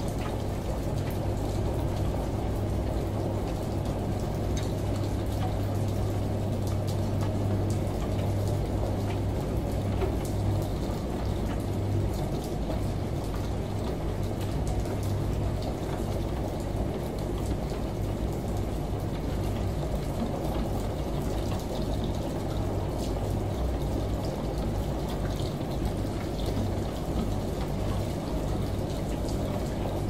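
Front-loading washing machine in its wash cycle: the drum turns and the wet laundry sloshes and tumbles in the water, over a steady low motor hum.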